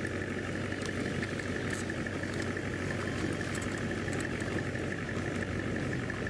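Radio-controlled model tractor running steadily as it pulls a loaded dump trailer: a constant motor drone with a steady whine over it and a few faint ticks.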